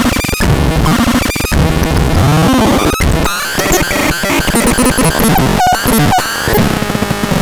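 ABSURDON X1 BAX BOX electronic noise box making harsh glitchy noise: warbling squeals and fast pitch sweeps over a dense hiss, cut off abruptly several times for an instant.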